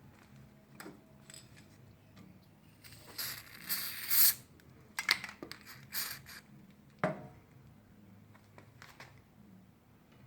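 Metal parts and tools being handled at a workbench: a run of scraping and rasping strokes about three to six seconds in, then a sharp knock, with light clicks and clinks around them.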